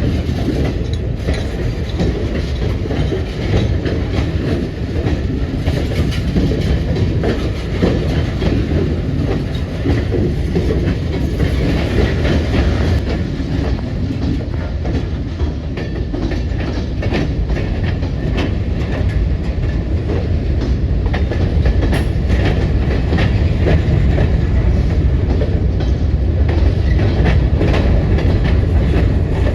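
CSX freight train rolling past: a steady heavy rumble with repeated sharp wheel clicks over the rails, growing slightly louder in the last several seconds.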